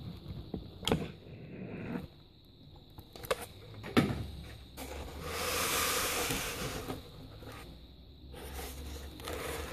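Clicks and knocks of tool handling during circuit-board soldering work, with a sharp knock about four seconds in, then a steady hiss lasting about two seconds.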